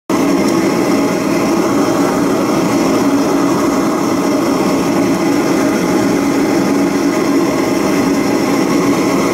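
A machine running steadily: a constant, even droning hum with no change in pitch.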